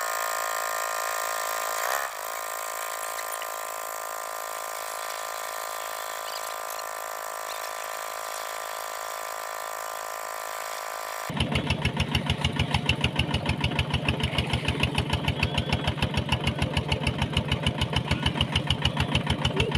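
An engine running steadily. About eleven seconds in, the sound changes abruptly to a fast, even chugging beat.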